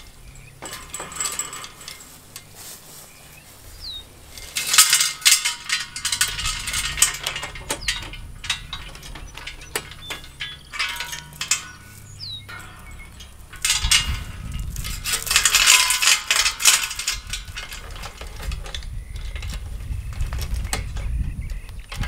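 Steel chains clinking and rattling as chain walker tensioners are worked along them on a fence stretcher bar, tensioning woven wire fence. The clatter comes in two spells, about five seconds in and again about fourteen seconds in, with a low rumble under the second.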